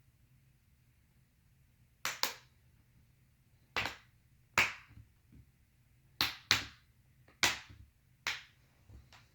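The plastic screen bezel of a Dell Inspiron 15 5567 laptop popping off its clips as it is pried away from the display, a series of about eight sharp plastic snaps at irregular intervals starting about two seconds in.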